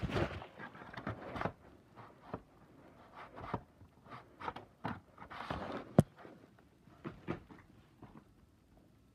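Close handling noise: irregular rustling and scraping with scattered light clicks, and one sharp click about six seconds in, dying away near the end.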